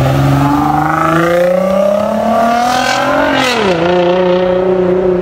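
Sports car engine revving as the car accelerates, its pitch climbing for about three seconds, then falling sharply and holding at a steady lower note.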